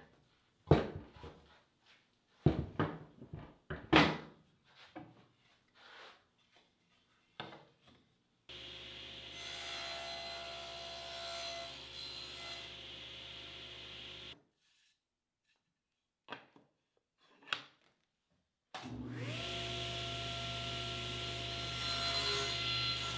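Wood knocking and sliding on a cast-iron table saw top as the fence and walnut stock are set, then the table saw running for several seconds. After a pause and a couple more knocks, the saw's motor spins up, its whine rising briefly and then holding steady.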